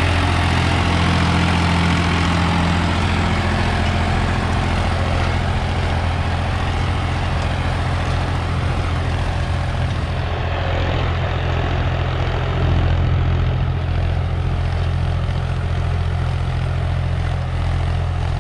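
Preet 955 tractor's diesel engine running steadily under load as it pulls a disc harrow through ploughed soil, a constant low hum. The sound turns duller about halfway through as the tractor moves farther off.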